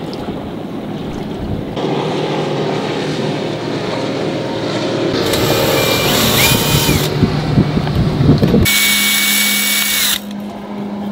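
Wind noise at first, then a DeWalt 20V Max XR cordless drill running in two short spells, its whine rising in pitch as it bites, drilling holes in the pilot-house wall for 10-32 screws.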